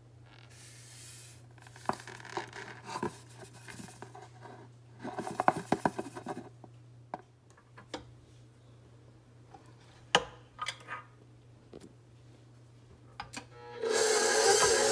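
Rubbing and scraping with sharp clicks and taps as butter pieces are handled in a stand mixer's steel bowl of bread dough. About fourteen seconds in, the stand mixer switches on and runs with a loud, steady hum as the dough hook kneads.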